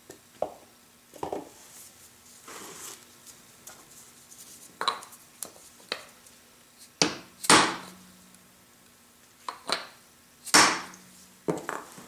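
Irregular metal clanks and knocks as a bearing is pressed further onto a table roller's shaft, each with a short ring; the two loudest come about three seconds apart in the second half.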